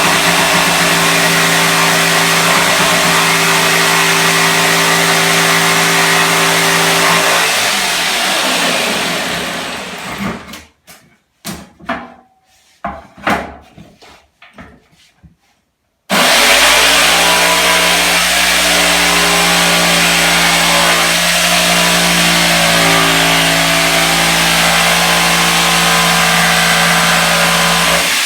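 Corded electric jigsaw cutting skirting board, its motor running steadily. About eight seconds in it winds down and stops, a few knocks and taps follow, and about sixteen seconds in it starts again abruptly and runs steadily.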